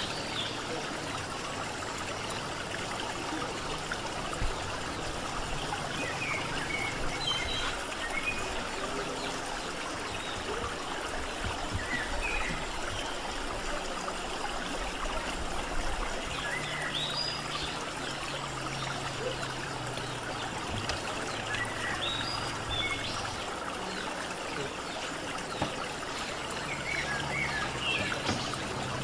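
Steady noise of running water, with faint short bird chirps scattered through.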